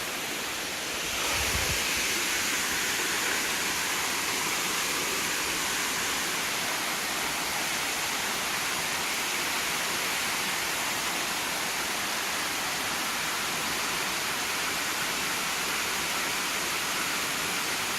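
Small waterfall splashing steadily into a pool: a continuous rushing hiss of falling water that grows a little louder about a second in.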